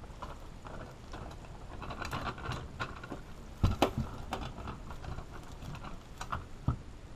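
Irregular clicks, taps and knocks of hand tools and their plastic packaging being handled, as a set of hex drivers is unpacked and looked over. A few sharper knocks come a little past halfway and one near the end.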